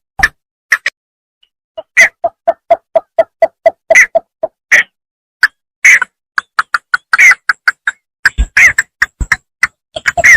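Bittern calling in fast runs of short, clipped notes, about five a second, with louder higher-pitched notes mixed in.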